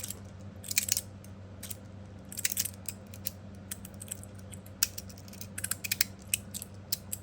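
Copper and stainless-steel magnetic fidget slider being worked in the hand, its metal plates sliding and snapping with short clusters of sharp metallic clicks every second or so.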